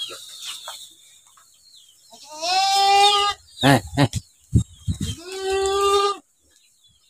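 A goat bleating twice, two long wavering calls a little over a second each, with a few sharp thumps between them.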